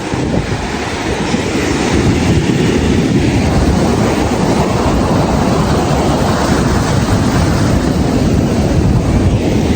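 Ocean surf breaking and washing up the shore as a loud, steady rumbling wash, heard right at the water's edge.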